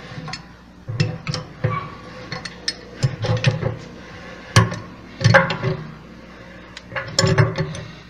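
Pipe wrench clinking and knocking against the tub nut and shaft at the hub of a washing machine's wash tub as the nut is tightened, in irregular metal clicks, each with a short hollow ring from the tub. The loudest knocks come about halfway through and again near the end.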